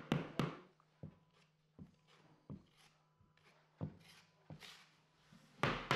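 Mallet tapping a hammer block to knock a glued parquet plank tight against the previous row: a string of short, irregularly spaced knocks, the loudest near the end.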